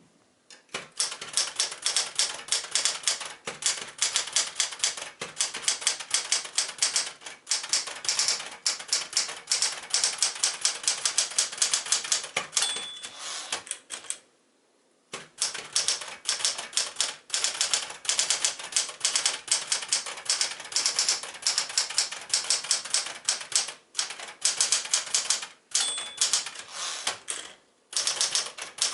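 Smith-Corona Galaxie Twelve manual portable typewriter being typed on at a fast, uneven pace, its typebars striking rapidly, with two short pauses. A brief ring sounds twice, the margin bell near the end of a line.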